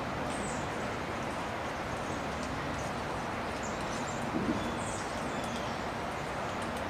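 Woodland ambience: a steady, even background rush with faint, high, short bird calls every second or so, and a soft low thump about four and a half seconds in.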